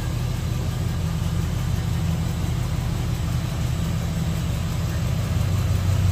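Box Chevy's engine idling steadily, a low even hum.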